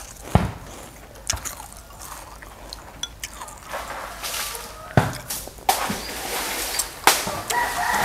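Tableware at a meal: scattered sharp clinks and knocks, with short bouts of liquid noise between them.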